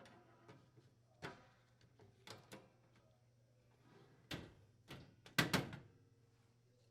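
Scattered metal clicks and knocks from a range vent hood's grease filters being set back in place and its access cover being raised and latched. There are about six separate knocks, the loudest a short cluster near the end.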